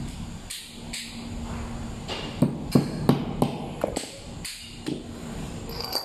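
Irregular sharp metallic knocks and clinks, about ten in all, as steel gear parts are handled on a workbench. A faint steady hum runs underneath.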